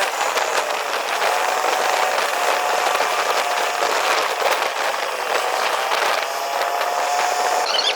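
Steady rushing road and wind noise of a moving vehicle, with a faint steady tone coming and going.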